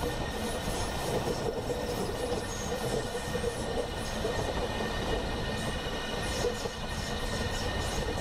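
A train running on rails, heard as a steady, even rolling noise without breaks.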